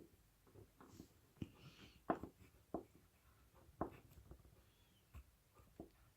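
Crayon working on paper: faint, scattered short strokes and taps at an irregular pace.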